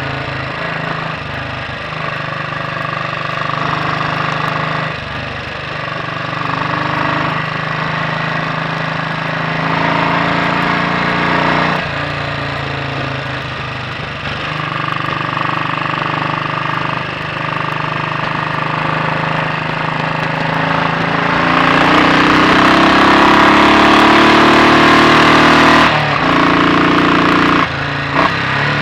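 Royal Enfield Bullet 500 single-cylinder four-stroke engine running on the road, with its inlet cam retarded one tooth; the revs rise and fall through gear changes. About two-thirds of the way through it pulls harder with a rising pitch and a rush of wind, then backs off.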